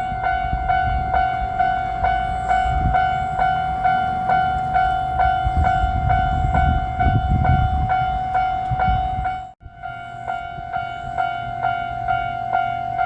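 Japanese railroad crossing's electronic warning bell ringing "kan-kan" at about two strokes a second, over the low rumble of the JR Shikoku Anpanman Torokko diesel train passing, loudest around six to eight seconds in. The sound drops out for a moment just before ten seconds in, then the bell rings on.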